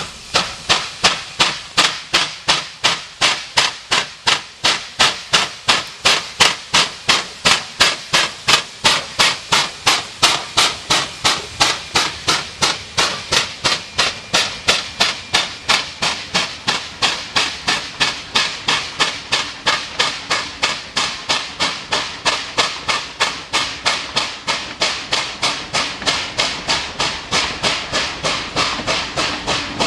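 Steam locomotive working under steam, its exhaust chuffing in a steady, even beat of about three chuffs a second.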